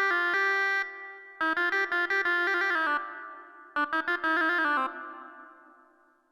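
Keyboard demo of a Turkish-style instrument sound: three short runs of quick melodic notes. Each run dies away before the next begins.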